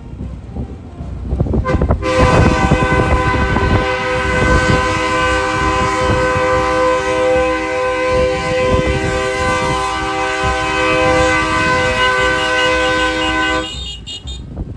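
Vehicle horns blown in one long held multi-tone blast, starting suddenly about two seconds in and cutting off near the end, over a steady rumble of engines and wind on the microphone.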